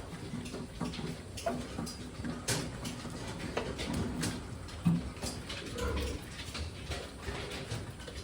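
Sow and newborn piglets in a farrowing pen: soft low grunts amid scattered clicks, scuffles and knocks, with one sharper knock about five seconds in.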